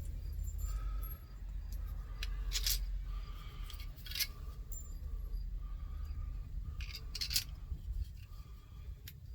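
Small metal mounting hardware being handled: a handful of sharp clicks and light rattles, spaced a second or two apart, over a steady low rumble.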